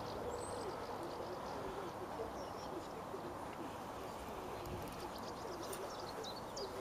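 Birds calling at a lakeside: a faint low wavering call under steady outdoor noise, joined in the last couple of seconds by a run of short high chirps.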